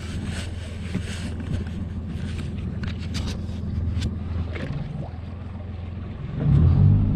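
Outboard motor of a small aluminium fishing boat running at low speed, a steady low hum with scattered light clicks. Near the end it gets louder and more clearly pitched as it speeds up.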